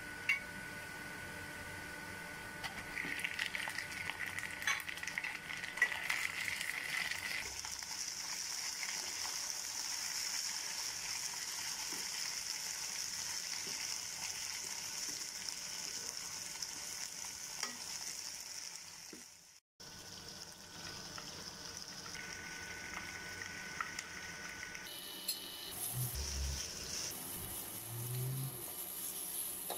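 Sliced onions and chicken pieces sizzling as they fry in oil in a nonstick kadai, stirred with a wooden spatula that scrapes and clicks against the pan. The sound cuts out briefly about two-thirds through, and a few low knocks come near the end.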